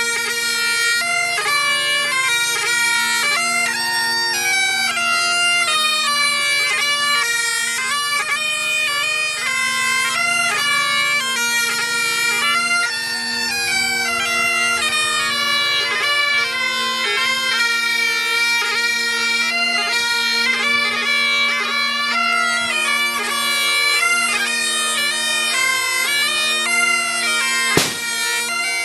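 Bagpipes playing a tune over their steady drones, with one sharp click about a second before the end.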